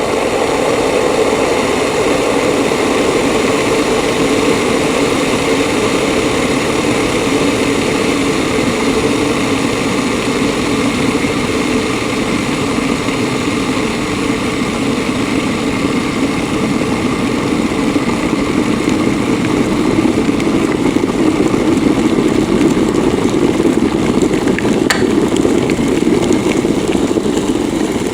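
Electric kettle heating water: a steady rushing rumble that grows slightly louder past the middle, with one light tick near the end.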